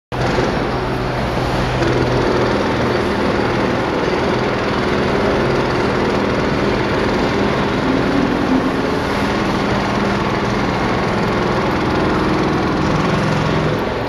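Jackhammer hammering continuously at a rapid, even rate.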